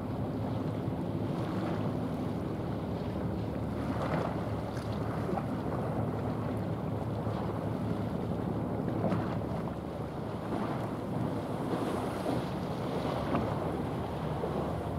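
A 143 m container ship passing under way: a low steady drone with the rush of water at its bow, under wind buffeting the microphone.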